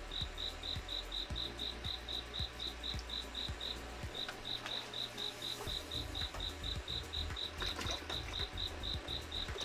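A cricket chirping in a steady, even rhythm of about three to four high chirps a second, pausing briefly about four seconds in. A low rumble with faint ticks runs beneath it.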